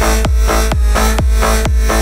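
Electronic dance music with a steady kick drum, about four beats a second, under sustained synth notes.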